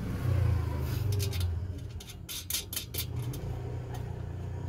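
A string of sharp metallic clicks and ticks as a small metal clamp is worked onto the wire stay of a motorcycle front fender, most of them between about two and three seconds in. Under them runs a steady low rumble.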